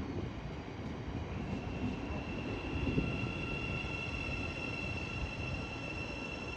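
Thameslink Class 700 electric train arriving at the platform: a low rumble with a steady high-pitched whine that grows stronger about two seconds in.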